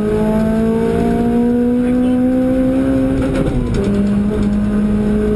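A car's engine heard from inside the cabin while driving on track, pulling hard with its pitch slowly climbing. About three and a half seconds in the pitch drops at a gear change, then starts climbing again. Steady road and wind noise runs underneath.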